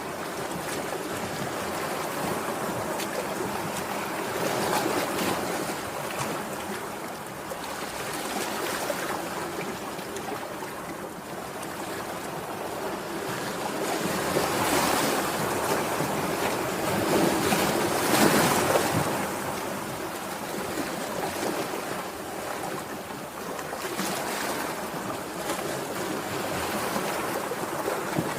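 Sea surf breaking and washing onto the shore. The rushing noise swells and eases every few seconds and is loudest a little past the middle.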